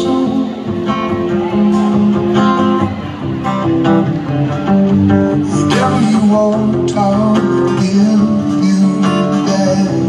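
Solo acoustic guitar playing a song live, amplified through a concert PA and heard from far back in the audience.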